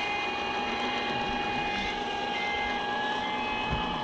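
Radio-controlled model Liebherr 944 excavator running its motors with a steady whine as it swings its boom away from the model dump truck toward the dig.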